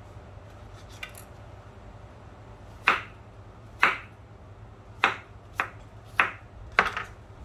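A kitchen knife chopping peeled apple into dice on a plastic cutting board: six sharp knocks of the blade on the board, starting about three seconds in and coming quicker near the end.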